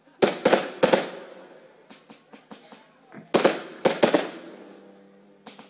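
Fireworks bursting: two quick loud bangs just after the start and two more about three seconds later, each trailing off in a crackling echo, with small pops between them.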